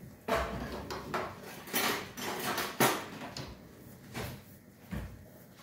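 Kitchen cookware and utensils knocking and clattering, about seven separate strikes, the loudest about three seconds in.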